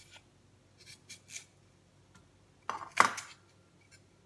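A metal vegetable peeler scraping the skin off a jicama (singkamas) in a few short strokes, the loudest about three seconds in.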